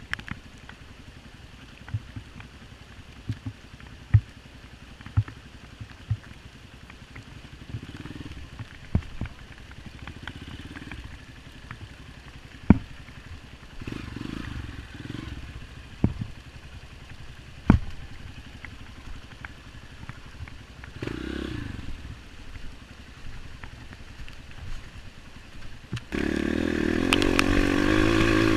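Scattered knocks and clicks over a low background, then near the end a trail motorcycle's engine comes in suddenly and runs loudly and steadily.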